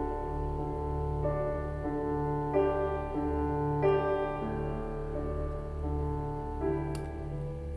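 Background piano music: slow sustained notes, with new chords entering every second or so.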